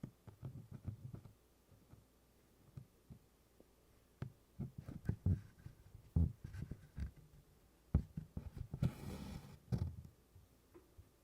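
Hand stitching on 24-count Congress cloth: scattered soft taps and scratches as the needle and cotton floss pass through the fabric, with a longer scratchy rustle about nine seconds in.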